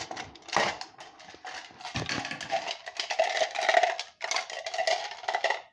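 Plastic felt-tip markers rattling and clicking against each other and against a small metal pail as a hand rummages through them, the clatter getting denser in the second half.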